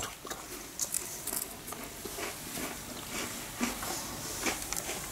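Thin clear plastic biscuit tray crinkling and rustling in irregular light crackles and clicks as chocolate biscuits are lifted out of it.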